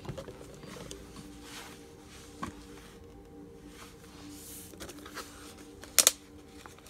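Thin plastic water bottle crinkling and crackling briefly about six seconds in as a hand grips it, over a faint steady hum and a few small clicks.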